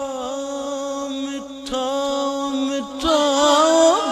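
A man singing a Punjabi Sufi kalam solo, holding long drawn-out notes with wavering ornaments. About three seconds in, his voice swells louder and climbs in pitch.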